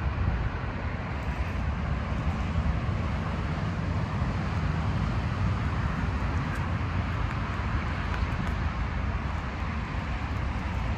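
Steady noise of motorway traffic, with wind buffeting the microphone.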